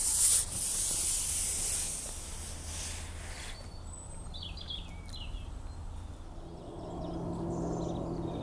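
A rustling hiss for the first three seconds or so, loudest at the very start. Then quieter waterside ambience, with a few short bird chirps about four seconds in and a faint low steady hum coming up near the end.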